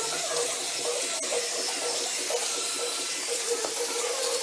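Pressure washer wand spraying water and foam onto the aluminum drop box casing: a steady hissing spray.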